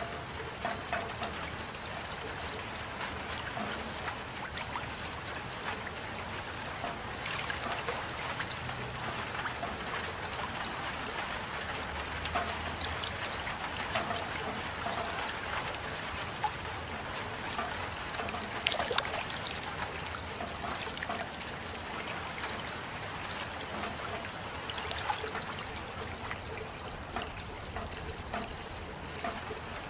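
Steady rain falling, a continuous hiss with many scattered small drop ticks and a trickling, running-water quality.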